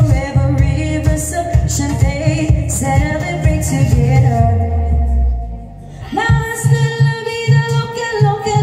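Women singing pop music through microphones over amplified music with a steady drum and bass beat. About five seconds in, the music thins to a falling low note and a brief lull, then comes back in with long held sung notes.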